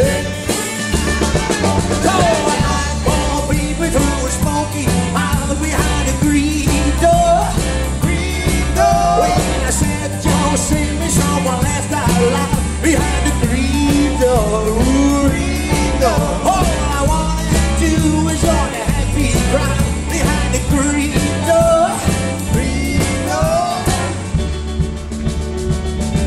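A live rock and roll band playing, with a male lead singer over electric guitars, bass, piano and drums at a steady beat.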